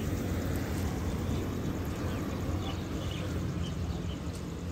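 Steady low outdoor rumble with a few faint, short bird chirps.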